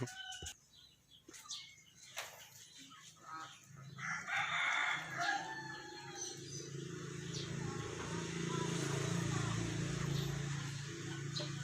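A rooster crowing about four seconds in, over a steady low hum that swells and then eases off.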